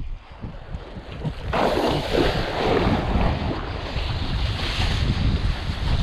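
Wind buffeting an action camera's microphone, with water rushing and splashing under a kiteboard as it planes across choppy sea. The rush grows louder about one and a half seconds in and stays steady.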